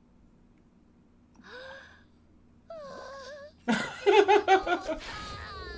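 An anime character's voice, not in words: a short cry, then a held moan, then a louder run of quick pulsed cries about four seconds in.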